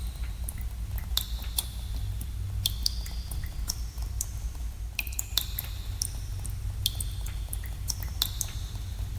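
Water drops falling irregularly in a cave, each landing as a sharp plink with a short ringing pitch, several overlapping each second, over a steady low rumble.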